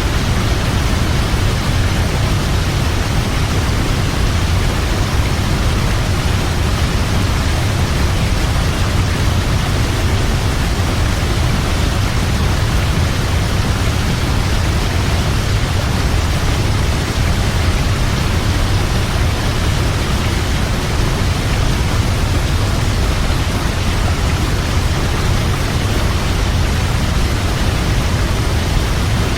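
Large waterfall: a steady, unbroken rush of falling water, heaviest in the low rumble.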